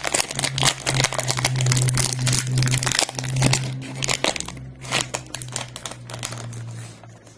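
Trading-card pack wrapper crinkling and being torn open, a dense run of irregular crackles that thins out over the last few seconds.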